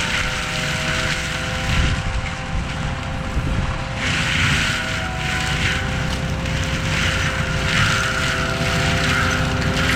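ASV RT-120F compact track loader running a forestry mulcher head: a steady engine drone under a higher whine that swells and eases every second or two as the mulcher works through small pine and gum trees.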